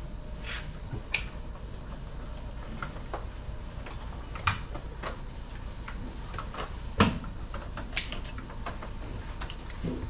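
Irregular sharp clicks and knocks of hands working on wiring, cables and connectors inside an automation system's control cabinet, over a steady low hum.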